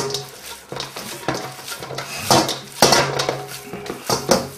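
Hands kneading seasoned minced beef in a stainless-steel mixing bowl, the metal bowl knocking and rattling at irregular moments.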